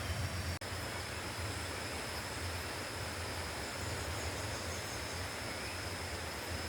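Steady jungle chorus of insects (crickets), one continuous high trill over an even background hiss, starting after a brief dropout about half a second in.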